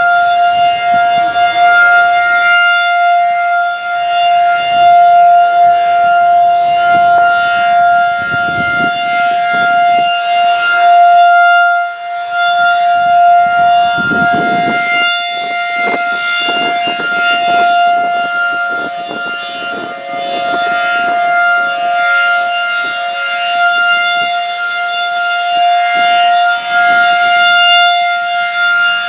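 Federal Signal 2001-SRN electromechanical outdoor warning siren sounding a loud, steady single-pitch wail during its test. Its loudness swells and fades every several seconds as the siren head rotates.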